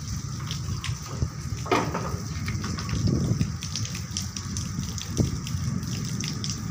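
Heavy rain pouring down: a steady rush with many scattered sharp ticks of drops striking nearby surfaces.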